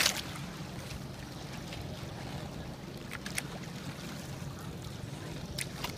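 An outrigger sailboat underway, with water rushing steadily along its hull and outriggers and a constant low rumble. A sharp knock comes right at the start, and a few shorter ones come about three and five and a half seconds in.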